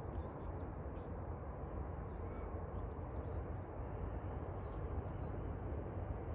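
Steady low rumble of a distant approaching diesel freight locomotive, with small birds chirping over it and a short whistled call about four seconds in.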